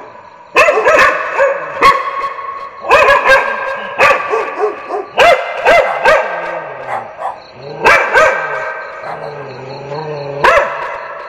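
Dogs barking in short clusters of sharp barks, one dog after another. Near the end comes a longer, lower wavering call.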